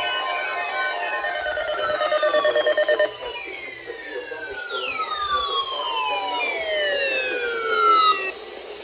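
Several emergency alert receivers sounding their alert tones at once: steady tones overlapped by many repeated downward-sliding electronic sweeps, with a fast buzzing pulse about two to three seconds in, all cutting off abruptly near the end. The tones announce a severe thunderstorm watch.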